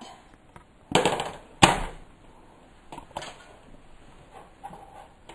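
Metal cookie sheet being set down on a glass-top electric stove: two sharp clattering knocks about a second in, then a fainter knock a little after three seconds.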